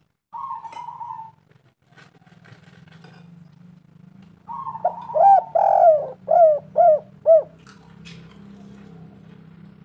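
Spotted dove (tekukur) cooing: a short coo near the start, then, about four and a half seconds in, a loud phrase of several quick, clipped coos, each rising and falling in pitch. A steady low hum runs underneath.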